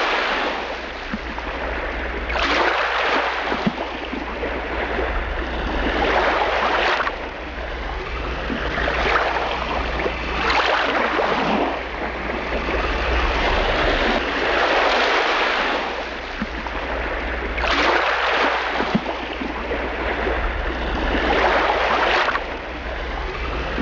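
Ocean waves sound effect: rushing water that swells and fades every two to three seconds over a steady low rumble.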